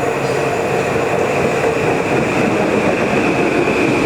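Passenger train passing close by at speed: a steady, loud rush of wheels on rail, with a steady high whine riding over it.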